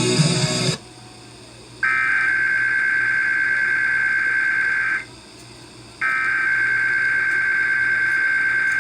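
Emergency Alert System SAME header data bursts: two bursts of a high, buzzing digital data tone, each about three seconds long and a second apart, that encode a required weekly test alert. A stretch of music cuts off just under a second in, before the first burst.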